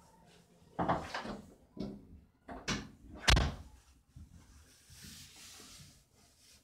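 A few dull knocks and thumps, then a single sharp bang like a door slamming about three seconds in, the loudest sound; a faint hiss follows.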